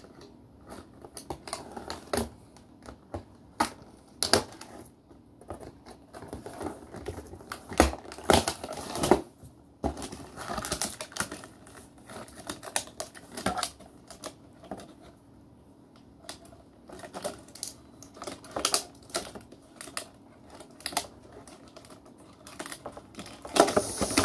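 Hands rummaging in a cardboard box of toy parts and packaging: irregular clicks and taps of small plastic pieces, with short stretches of rustling and crinkling, loudest about eight to nine seconds in.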